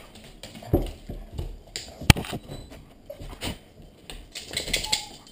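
Close handling noise: rustling with scattered knocks and taps, one sharp click about two seconds in, and louder rustling near the end.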